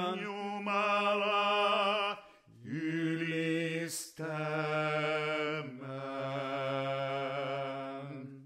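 Two men singing the close of a Finnish spiritual song in two-part harmony, drawing out the last syllables in long held notes with vibrato. The singing pauses briefly about two and a half seconds in, a sharp click comes at about four seconds, and the final held chord drops lower before stopping short.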